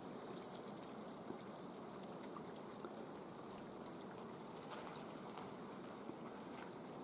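Faint, steady trickle of water running at a partly frozen mountain spring, with a few soft ticks.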